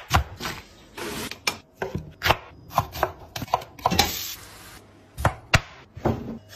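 Kitchen knife chopping vegetables on a wooden chopping board: a run of sharp, irregular knocks, with a short hiss about four seconds in.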